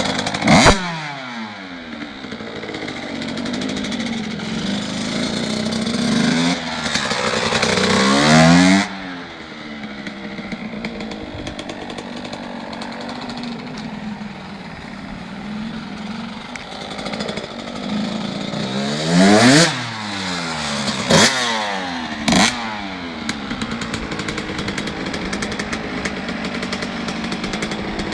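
1995 Husqvarna CR125's single-cylinder two-stroke engine idling and being blipped: a quick rev about half a second in, a longer rev building for a couple of seconds and dropping back about nine seconds in, and a cluster of sharp revs around twenty seconds in. The engine is freshly overhauled and late in its run-in.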